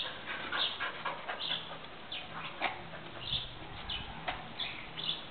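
A dog's short, high whimpers, scattered at irregular intervals.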